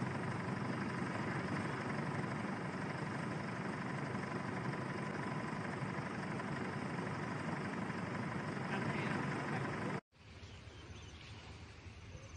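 Steady engine noise, like an idling vehicle, with a faint steady tone; it cuts off abruptly about ten seconds in and gives way to quieter outdoor ambience.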